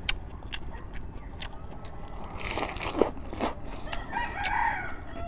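A rooster starts crowing about four seconds in, over scattered light clicks and eating sounds of chopsticks and a porcelain bowl.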